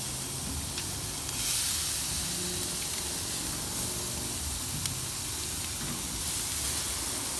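Beef and chicken sizzling on a grill grate over a wood fire: a steady hiss that swells briefly about a second and a half in, with a few faint ticks.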